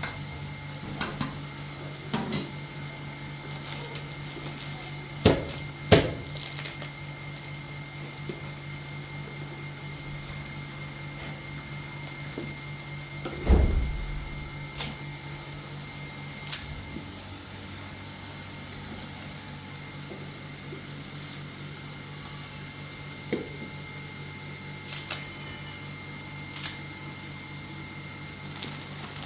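Scattered knocks and clatter in a room, a dozen or so, with a heavy thud about halfway through, over a steady low hum.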